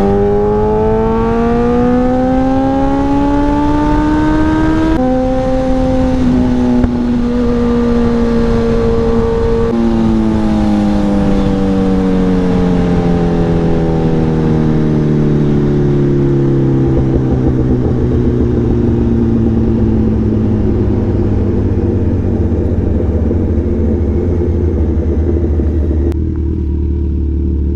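Sport motorcycle engine pulling through the gears: the pitch climbs, drops suddenly at an upshift about five seconds in and again about ten seconds in, then falls steadily as the bike slows and settles to a low, steady note. The rushing hiss above the engine thins out near the end.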